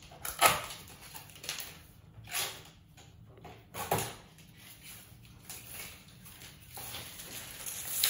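Scattered scrapes, rustles and a few sharp knocks as packing tape and cardboard at the base of a new fridge are cut and pulled away with a utility knife; the loudest knocks come about half a second in and about four seconds in.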